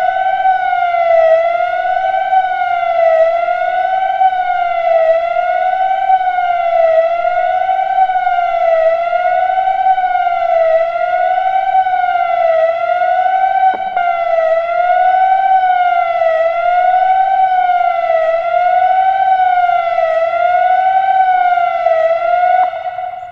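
Emergency warning siren wailing, its pitch rising and falling in a steady cycle about every two seconds, fading out near the end.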